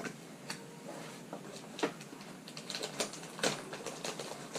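Packaging being handled during an unboxing: irregular light clicks and taps, with a few sharper knocks about two and three and a half seconds in, as the camera is taken out of its box.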